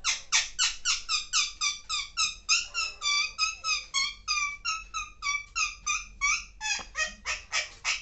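Young Alexandrine parakeet giving a long run of short, rapid chattering calls, about four a second, which its owner likens to a hen's 'pak pak pak' clucking.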